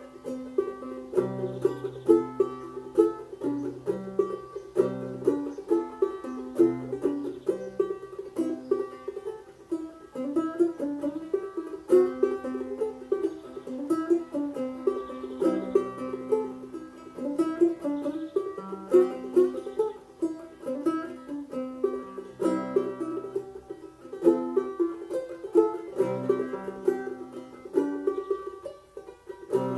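Prat Instruments open-back banjo with a 12-inch rim and Dobson tone ring, strung with nylon strings and tuned to double C at A = 432 Hz, played clawhammer style. A steady, even run of plucked melody notes.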